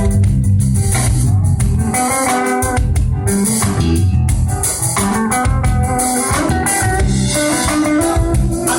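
Live band playing: a guitar carrying the melody over bass guitar and drum kit.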